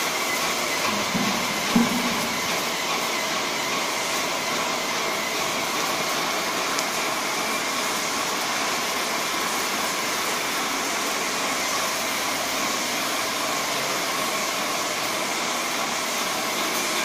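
Graco airless paint sprayer running steadily, the spray gun hissing as it atomises paint onto a wall, with a faint steady whine. A brief knock about two seconds in.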